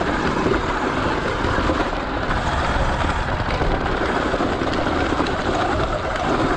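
Sur Ron X electric dirt bike riding over a loose, rocky trail: a steady rush of wind and tyre noise over gravel and stones.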